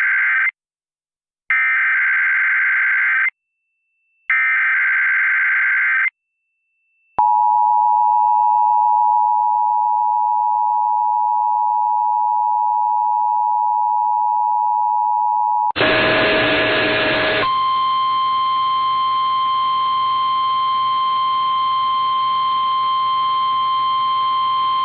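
Emergency Alert System test tones relayed over TV audio. Three short bursts of buzzy SAME header data, the first already under way, are followed by the two-tone EAS attention signal, a steady dual tone lasting about eight seconds. Then comes a steady single tone over hiss, the NOAA Weather Radio warning alarm relayed, for about nine seconds.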